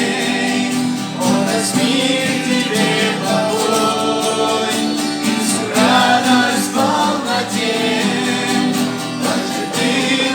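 A song: singing with guitar accompaniment.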